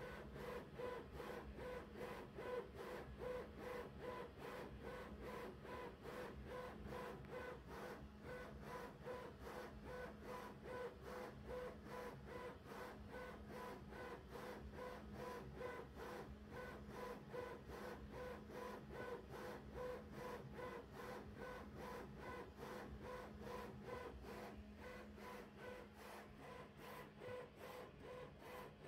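Custom-built VzBoT 3D printer printing at 1000 mm/s: its ODrive-driven 270 KV motors and belts sweep the print head back and forth in a steady rhythm of about two to three strokes a second, over a steady hum. It grows a little fainter near the end.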